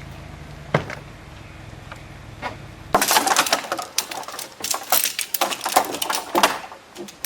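A steady low hum with a few single clicks. About three seconds in, a rapid, uneven run of sharp clinks and clatters begins, of hard objects knocking together as they are handled.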